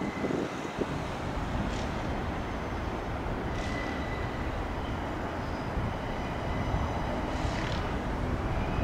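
Class 68 diesel-electric locomotive running steadily as it approaches slowly over pointwork, hauling a rail head treatment train. Faint high thin tones come and go over the rumble.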